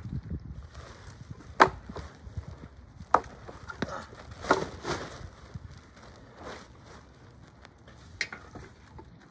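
A handful of sharp, woody knocks at uneven intervals a second or more apart, the loudest about one and a half seconds in.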